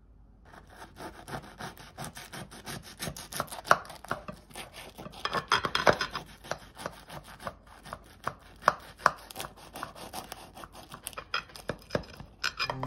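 A knife cutting through a crisp baked spiral filo börek makes irregular crackling crunches as the flaky pastry layers break. The sound starts about half a second in.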